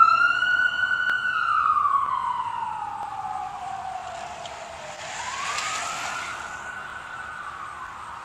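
A siren wailing: it rises, holds high for about a second, slowly falls over several seconds, then climbs again about five seconds in and holds before starting to fall near the end.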